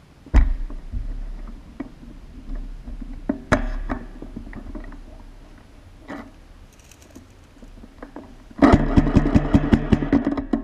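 Airsoft gun fire: a couple of single sharp shots early on, then near the end a rapid full-auto burst of about two seconds, the gun's motor humming under the quick even run of shots.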